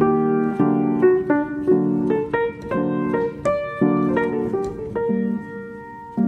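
Background piano music: a slow tune of struck notes and chords, a few to each second, each ringing and fading.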